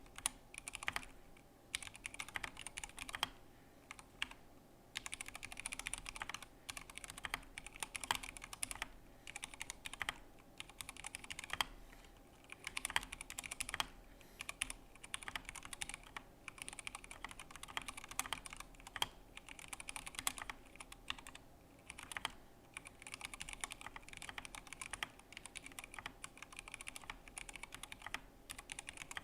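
Typing on a DURGOD K320 mechanical keyboard with stock, unlubed Cherry MX Black linear switches and a steel plate: continuous runs of key clacks broken by short pauses.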